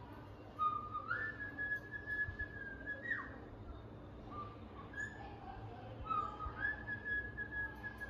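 Cockatiel whistling: a note steps up into a long held whistle that ends in a quick downward slide, about a second in and again near the end, with short chirps between.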